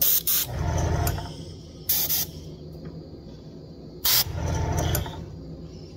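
Airbrush releasing three short blasts of air about two seconds apart, each a sharp hiss, with a lower hum running for about a second after the first and the last.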